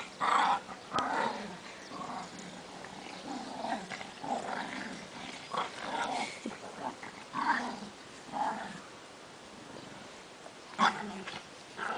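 Dog barking in a string of short, uneven calls, the loudest near the end.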